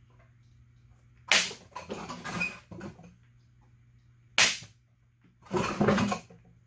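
Corded electric staple gun firing twice, about three seconds apart, driving staples through a towel into a wooden post. Each sharp snap is followed by the rustle of the towel being pulled and handled.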